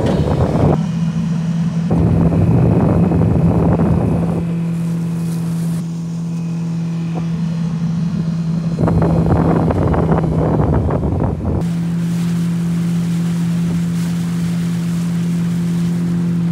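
Outboard motor of a Zodiac inflatable boat running at a steady speed, a steady low hum. Spells of wind rushing on the microphone and water noise come and go, starting and stopping abruptly several times.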